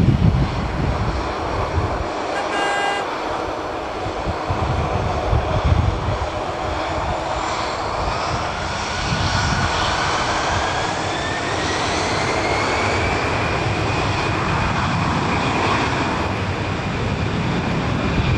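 Boeing 737-400's CFM56-3 turbofan engines running at taxi power: a steady jet rumble with a fan whine that rises in pitch near the middle as the airliner turns nose-on, then holds.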